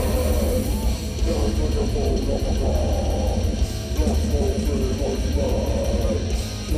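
Death metal band playing live: heavily distorted electric guitars riffing over bass and drums, with a steady run of cymbal strikes through the middle of the passage.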